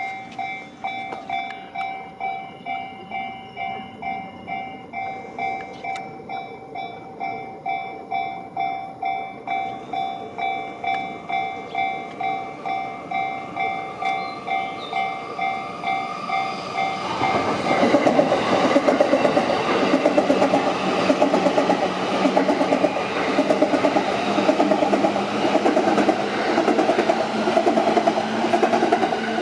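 Japanese level-crossing bell ringing its steady, evenly repeated electronic ding. About halfway through, a JR Yamanote Line train arrives and passes through the crossing, its wheels and running gear much louder than the bell, which keeps ringing underneath.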